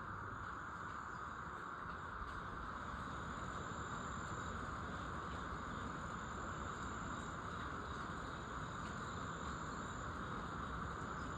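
Steady chorus of insects, such as crickets, with a faint high thin trill that comes and goes every couple of seconds.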